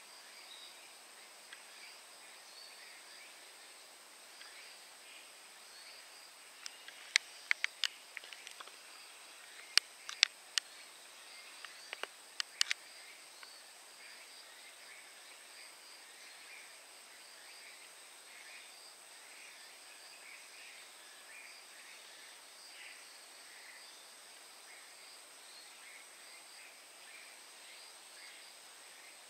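Faint garden ambience: scattered faint chirps over a steady high-pitched whine. About seven seconds in, a run of sharp clicks comes in quick groups for some six seconds, the loudest thing heard.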